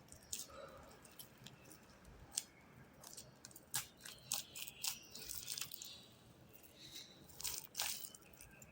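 Slime with foam mixed into it being worked and stretched, giving faint, irregular crackling and clicking squelches.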